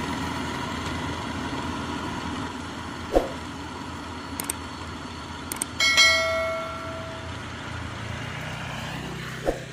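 Yanmar YH850 combine harvester's diesel engine running steadily as it drives away. A few sharp clicks come from a subscribe-button animation, and about six seconds in a bright bell chime rings out and fades over a second or so.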